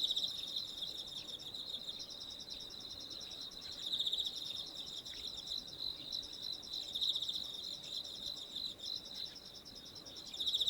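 Continuous high-pitched trilling made of rapid pulses, swelling louder about every three to four seconds, with a few faint short chirps below it.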